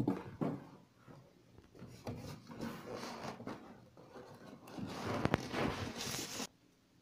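Cardboard box flaps and plastic wrap rustling and scraping as an oven is pulled out of its packing. The handling gets louder and busier about five seconds in, with a few sharp clicks, then stops abruptly near the end.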